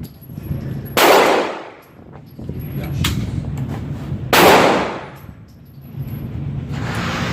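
Two gunshots at an outdoor range, about three and a half seconds apart, each with an echoing tail that dies away over about a second. A shorter, sharper click falls between them.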